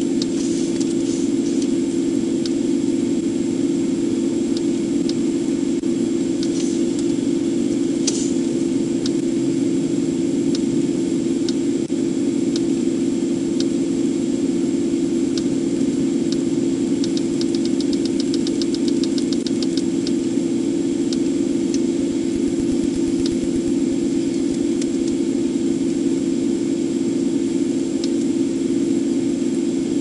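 Steady hum of an idling police cruiser's engine and running fan, with faint light clicks every second or so and a quick run of clicks a little past halfway.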